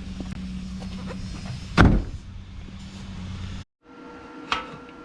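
Steady engine and road hum inside a moving car, with one loud thump or knock about two seconds in. Near the end the sound cuts off abruptly, and a quieter room background follows with a couple of light clicks.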